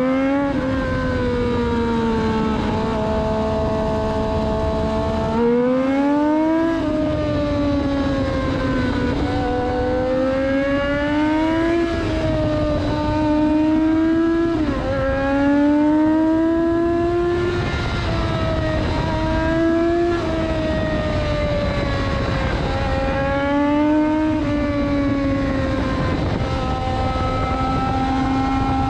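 Triumph Daytona 675R's 675 cc inline-three engine heard from on board under way, its pitch climbing under throttle and dropping back again and again with each gear change or roll-off. A steady rush of wind runs underneath.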